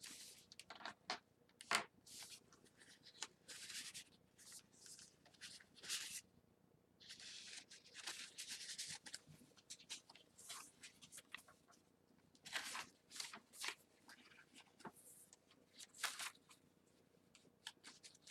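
Paper pages of a handmade journal rustling and crinkling as they are handled and turned: a string of short, soft scrapes with a few sharp clicks, and a longer rustle about halfway through.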